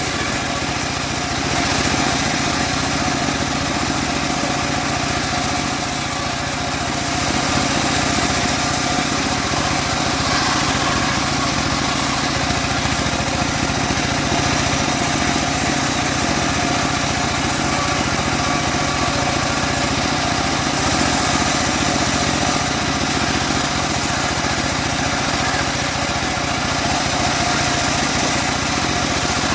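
Engine of a homemade bandsaw sawmill running steadily at a constant speed, with small dips in loudness about a second in and again around six seconds.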